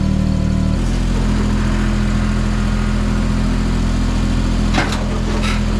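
Scissor lift's engine running steadily, its tone shifting about a second in. A few knocks near the end.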